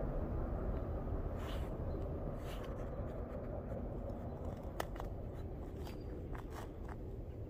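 Freight train rumbling low and steady, slowly fading as it recedes, with a few faint clicks and ticks.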